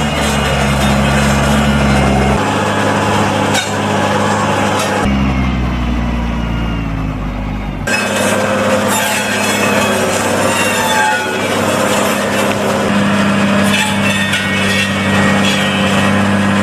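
New Holland T6050 tractor's diesel engine running steadily while it drives a front-loader-mounted Jansen branch saw with three circular blades. The sound's tone changes abruptly a few times.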